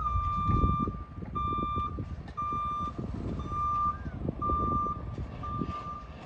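Reverse alarm of a 2022 Isuzu NRR garbage truck backing up: a steady single-pitched beep about once a second, each beep about half a second long. Irregular low rumbling runs underneath.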